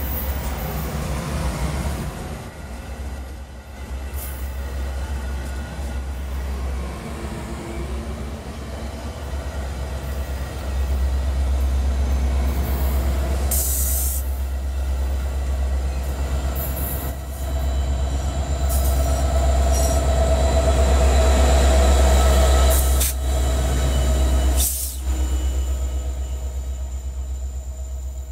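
Metra commuter train of stainless-steel bilevel cars passing close by, with a steady low rumble, wheel squeal and a few sharp knocks from the wheels and couplers. It is loudest as the diesel locomotive at the rear goes by, then fades as the train clears.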